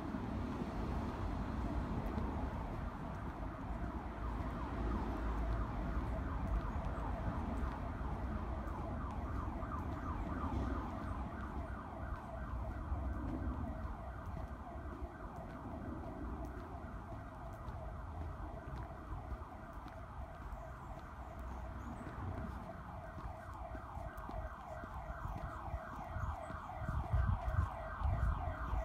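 An electronic siren sounding in fast, evenly repeated pitch sweeps, growing plainer about halfway through, over a low rumble.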